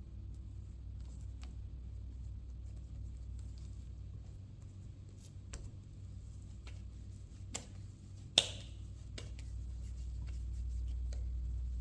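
Hands patting, pressing and rolling soft bread dough on a stone countertop: scattered soft taps and light handling noises over a steady low hum, with one sharp click a little past the middle.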